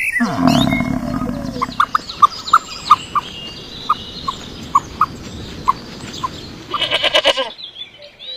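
Animal calls: a low call falling in pitch at the start, then a run of short high chirps about two a second, and a brief bleat-like call near the end.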